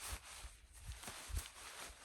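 Footsteps in deep snow: a soft thud about every half second over a steady hiss.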